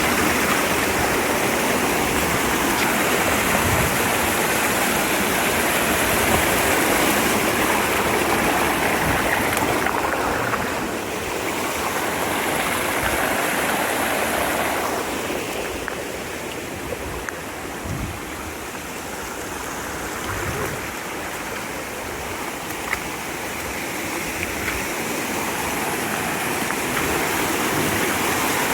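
Mountain stream rushing over rocks, a steady loud noise of flowing water that eases somewhat in the middle and swells again toward the end.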